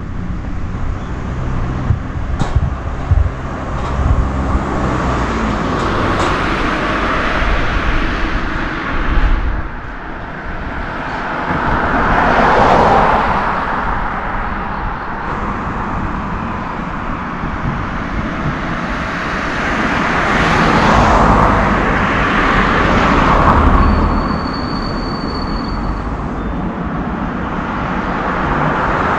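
Road traffic beside the walker: motor vehicles passing, the noise swelling and fading about twelve seconds in and again around twenty to twenty-three seconds, over a steady outdoor rumble. A couple of sharp knocks sound near the start.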